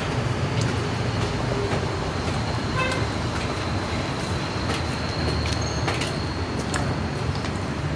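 Electric drain-cleaning machine running steadily, its motor spinning a spiral steel cable that is being fed into a clogged clean-water pipe, with scattered light clicks from the cable.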